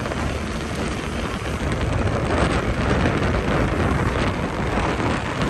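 Motorcycle engine running while riding, with wind rushing over the microphone; the noise swells a little about two seconds in.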